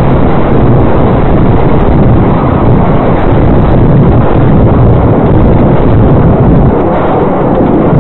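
Loud, steady, distorted rushing of wind and road noise inside a car driving fast through a cloud of smoke and dust, easing slightly near the end.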